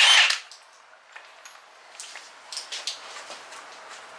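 A cordless impact wrench running on the engine and stopping about a third of a second in, followed by light metallic clinks and clicks of the socket and parts being handled.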